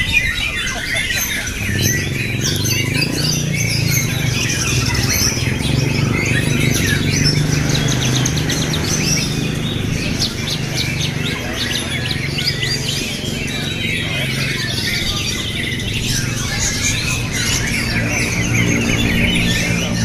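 Many caged songbirds singing at once in a songbird contest: a dense, unbroken mix of fast chirps, trills and squawks. A low steady hum runs underneath from about two seconds in.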